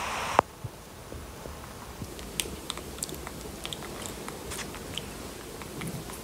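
Baby macaque chewing a mouthful of rice porridge, with many small wet lip-smacking clicks. A brief hiss that ends in a sharp click comes right at the start.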